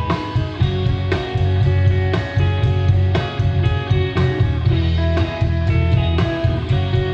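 Live rock band playing: electric guitars over bass and a steady drum beat.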